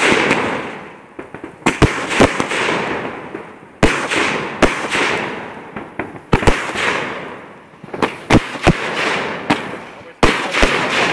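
Fireworks going off: sharp bangs every one to two seconds, often two in quick succession, each followed by a rush of noise that fades away.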